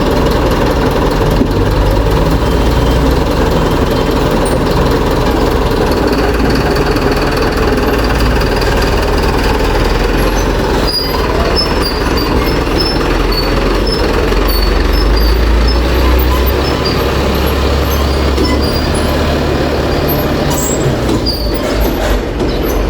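Truck engine running steadily at idle, a continuous low, heavy rumble.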